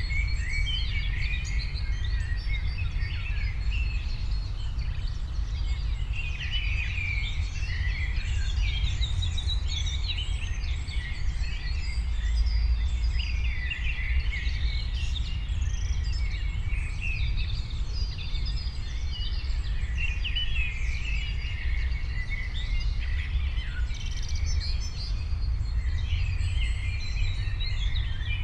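Many songbirds chirping and trilling over one another in a dense, continuous chorus, over a steady low rumble.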